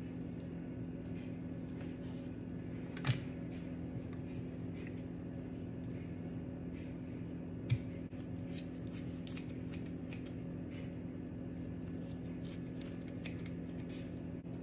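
Kitchen shears snipping through a raw redfish fillet, a run of small clicks in the second half. Two louder knocks come earlier, about 3 and 8 seconds in, over a steady low hum.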